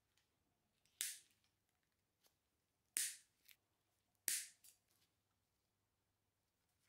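Side cutters snipping through plastic zip ties holding the brake hose: three sharp snaps, about a second in, at three seconds and just after four seconds, each followed by a softer click.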